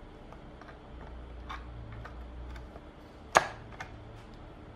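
Light ticks and scrapes of a tool working at the plastic front panel of an APOLO speaker cabinet, then one sharp snap about three and a half seconds in and a smaller click just after, as the panel pops loose.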